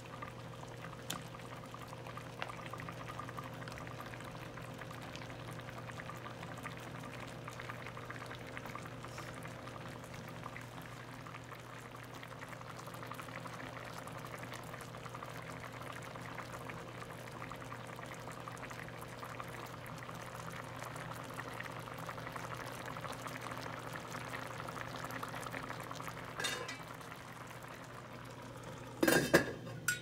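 Coconut milk simmering with a fine, steady bubbling in a stainless steel pan of fish and vegetables, over a steady low hum. Near the end a stainless steel lid clatters down onto the pan.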